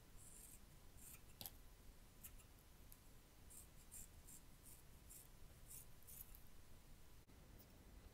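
Hair scissors snipping into the ends of a twisted lock of hair: a dozen or so faint, quick, crisp snips at an uneven pace, stopping about six seconds in.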